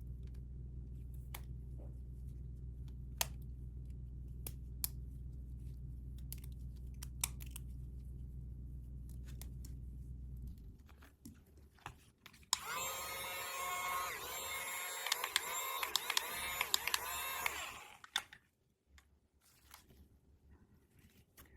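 Small clicks and taps of toy packaging being handled over a steady low hum. About twelve seconds in, a louder pitched, warbling sound runs for about five seconds, then stops abruptly and leaves only faint handling clicks.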